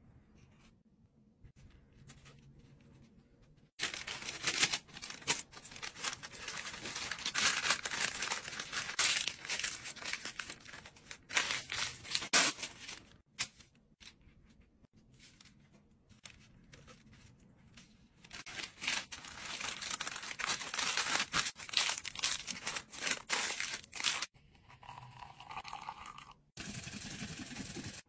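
Sheets of paper crinkling and rustling loudly as tortilla wraps are filled and folded up in them, in two long stretches with a quieter pause between. Near the end, a short steady noise.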